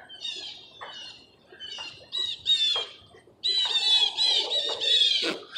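Birds calling: short, harsh, repeated squawking calls, scattered at first and then coming in a fast, unbroken run for the last two seconds or so.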